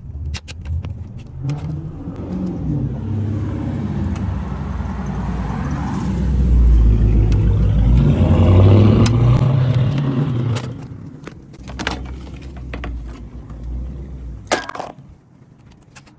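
A motor vehicle's engine noise swells up, peaks about halfway through, and fades away. Scattered sharp metallic clinks and knocks, like hand tools on car parts, sound throughout.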